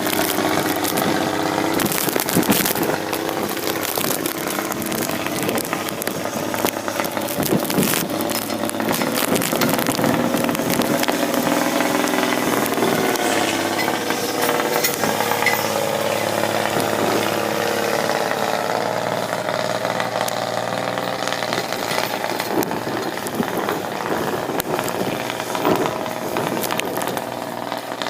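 Bombardier J5 Muskeg tracked snow vehicle's engine running steadily under load as it drives through snow, its pitch rising and falling, with many small clicks and knocks through it.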